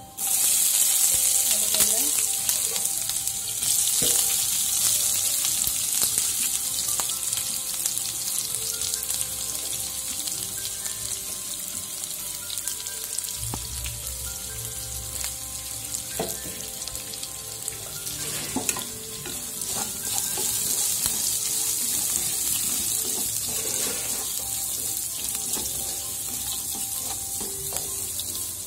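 Chopped onions and green chillies dropped into hot oil in a kadai set off a sudden loud sizzle. The frying goes on as a steady hiss while they are stirred, with occasional clicks of the spoon.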